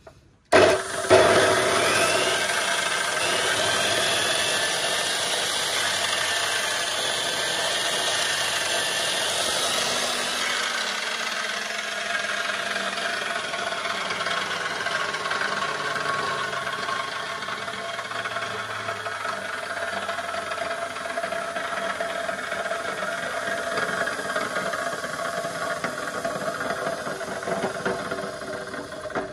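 Hitachi 355 mm bench cut-off saw's 1450 W motor switched on about half a second in, rising quickly to speed and then running steadily and free with a high whine, before being shut off and dying away at the very end.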